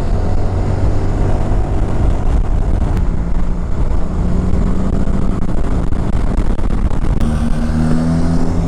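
Honda Forza 350 scooter's single-cylinder engine running under way, with rushing wind and road noise; the engine note shifts pitch about three seconds in and again near the end.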